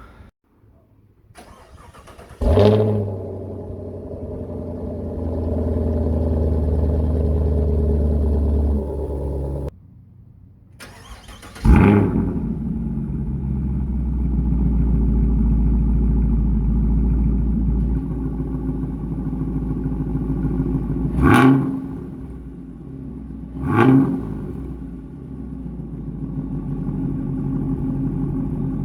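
Camaro SS's 6.2-litre V8 through a newly fitted Borla S axle-back exhaust. It starts with a loud flare that settles to an idle, is shut off after several seconds, and is then started again and idles. Near the end come two quick throttle blips.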